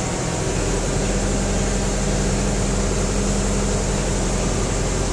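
An engine running steadily with a constant low hum, likely the machine hoisting the pump pipes up out of the well.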